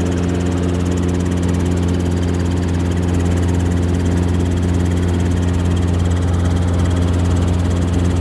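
Helicopter in flight, heard from inside the cabin: a steady drone of the engine and rotor, a low hum with evenly spaced overtones that holds unchanged throughout.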